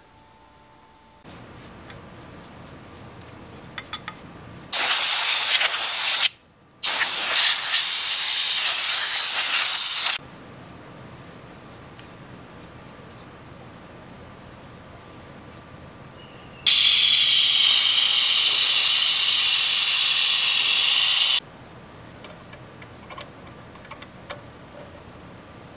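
Spray hissing in three loud, steady blasts onto a radio's variable tuning capacitor to clean it. There is a short burst about five seconds in, a longer one right after it, and a blast of about five seconds later on. Between the blasts come faint clicks and light scrubbing from a toothbrush on the capacitor's plates.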